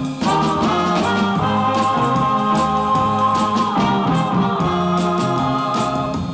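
Instrumental introduction of a French pop song played from a 45 rpm vinyl record: held chords over a steady beat with light cymbal ticks.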